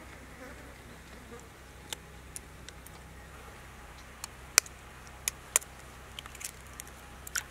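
Eggshells being cracked with a knife blade: a scatter of sharp ticks at uneven intervals, some much louder than others.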